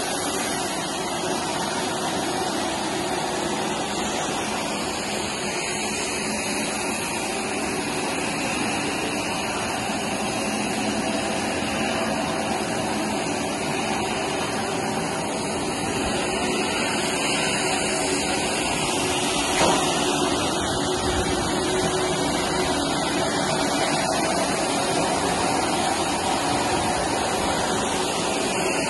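Handheld electric polishing machine running steadily: a continuous motor hum over a broad rushing noise, with one brief knock about twenty seconds in.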